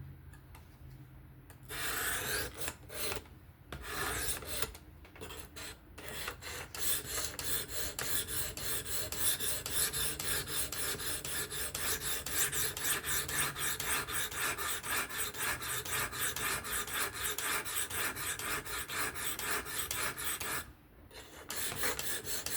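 Abrasive sharpening stone on a fixed-angle guided sharpener rubbing along a S30V steel knife edge: a few separate strokes, then a long run of quick, even back-and-forth rasping strokes with a short pause near the end. This is the second side of the blade being worked after a burr was raised on the first.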